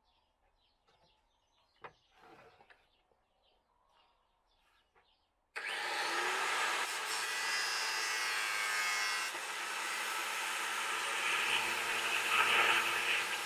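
A handheld power tool switches on suddenly about five and a half seconds in and runs steadily and loudly. Before it there are only faint bird chirps and a single click.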